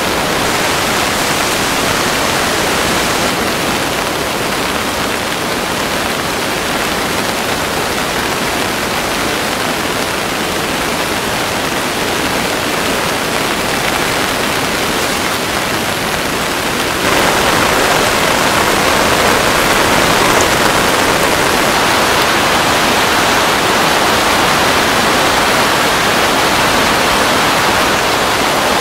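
Heavy rain falling steadily on a tent tarp, a constant hiss that gets louder and brighter about halfway through.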